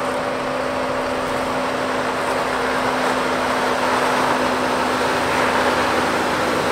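2020 Jeep Gladiator's 3.6-litre V6 running at low trail speed with a steady hum as the truck crawls closer over rock and sand, the sound slowly growing louder.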